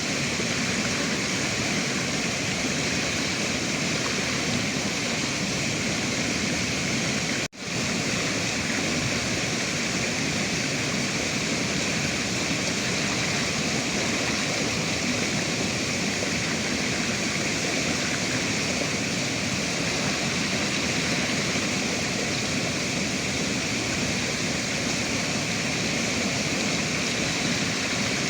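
Steady rush of flowing river water, with a momentary dropout about seven and a half seconds in where the sound briefly cuts out and comes straight back.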